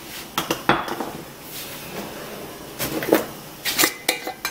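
A series of sharp clicks and knocks from a kitchen cupboard and spice tins being handled, with a short rustle about two seconds in.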